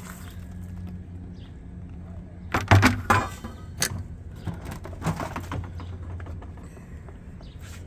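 A few sharp knocks and clicks, loudest in a cluster about three seconds in, over a steady low hum.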